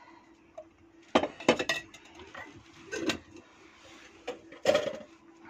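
Metal cookware clanking on a gas stove as a kadai is set down onto the burner's pan supports: a cluster of knocks and clinks about a second in, another near three seconds and one more near the end. A faint steady hum runs underneath.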